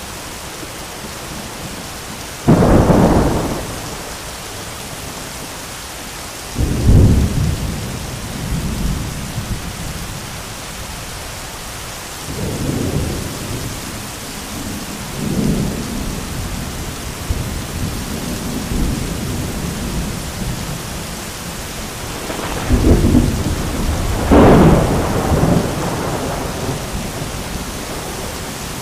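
Heavy rain hissing steadily, broken by thunder: a sudden sharp crack a couple of seconds in, another a few seconds later, softer rumbles in the middle, and a long, loud rolling peal near the end.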